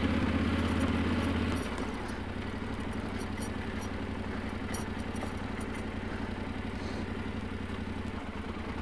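Yamaha Ténéré 700's 689 cc parallel-twin engine running while the bike is ridden. It drops to a quieter note about a second and a half in, then runs on steadily.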